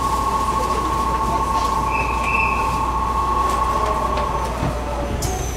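Steady two-note electronic tone of a station departure buzzer, sounding for about four and a half seconds and then stopping, over the hubbub of a railway platform while the train stands with its doors open. A high thin tone comes in suddenly near the end.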